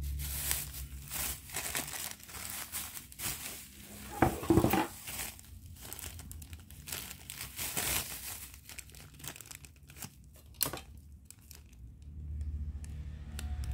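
Clear plastic packaging bag crinkling and rustling as it is handled, while a hand-held coping saw is slid into it, with irregular crackles and a louder spell of handling about four and a half seconds in.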